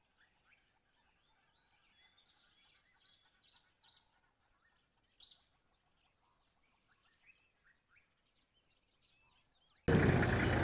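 Faint chorus of small birds chirping, many short quick falling notes overlapping. Near the end a much louder, steady low engine hum cuts in abruptly.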